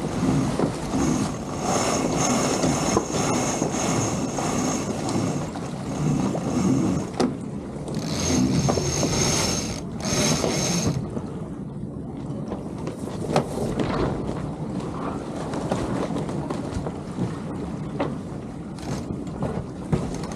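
Steady rushing noise of wind on the microphone and water along the hulls of a sailing catamaran, swelling and easing, with a few brief knocks.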